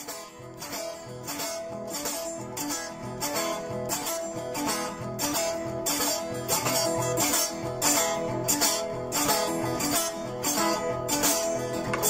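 Downhome blues music on acoustic guitar, strummed in a steady rhythm, growing louder over the first couple of seconds.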